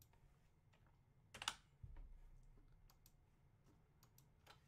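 Faint, scattered clicks of a computer mouse and keyboard, with one louder burst of clicks about a second and a half in and a soft low thump just after it.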